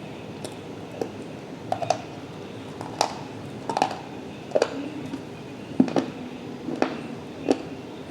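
Crisp crunches, about one a second and irregular, as a half-wet, half-dry material is crunched.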